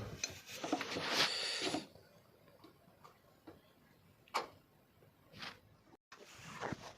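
Light handling noise: a scraping rub in the first couple of seconds, then a few isolated light clicks.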